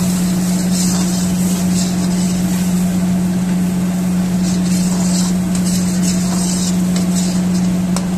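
Steady loud machine hum of a commercial kitchen, with bursts of hissing and sizzling from tomato-based gravy cooking in a wide steel pan on a gas burner, in the first two seconds and again about five to seven seconds in.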